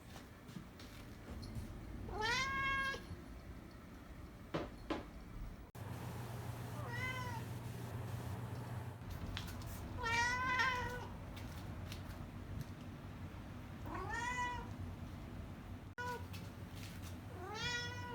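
Domestic cat meowing repeatedly: about five separate meows a few seconds apart, each rising in pitch at the start, with a short chirp-like meow near the end.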